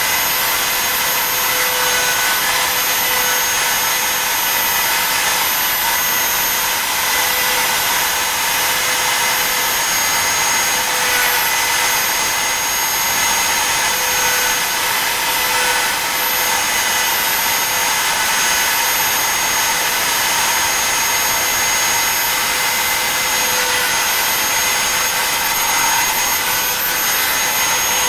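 BobsCNC E3 CNC router's spindle running with a steady high whine as the bit cuts into the wood board, its pitch wavering slightly a few times.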